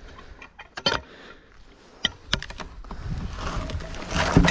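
Handling noise: a few scattered sharp clicks and knocks, then rustling that builds near the end with one louder knock.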